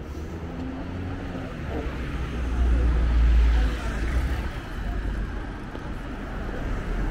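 A motor vehicle passing close by on a city street: a deep engine rumble and tyre hiss build to a peak about three seconds in, then fade.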